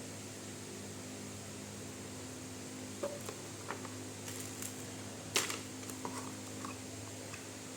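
Handling noises from packaging being unboxed: a scatter of small clicks and crinkles starting about three seconds in, the sharpest near the middle, over a steady low electrical hum and hiss.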